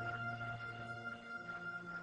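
Background music of slow, sustained held notes over a low drone; the low note moves up a little past halfway.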